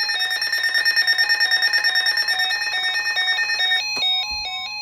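Several weather radios sounding their alert alarms at once for a tornado warning: overlapping warbling beep patterns at different pitches, out of step with each other. A loud, high, rapid trilling tone among them stops about four seconds in, and a steady single tone comes in.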